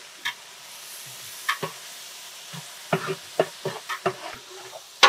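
A ladle scraping and knocking against a cooking pot as food is stirred, in irregular strokes, over a steady sizzle from the pot.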